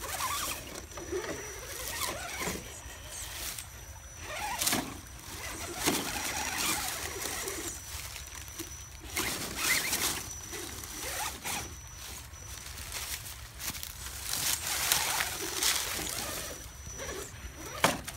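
Electric radio-controlled rock crawler driving over rocks in irregular starts and stops: a faint motor whine comes and goes, with tyres scraping stone and dry leaves crunching.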